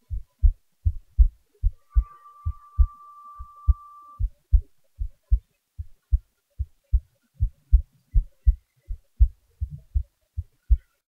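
A person's heartbeat, recorded up close and amplified: regular low thumps, two to three a second, at a resting pace. A faint steady high tone sounds from about two seconds in to about four.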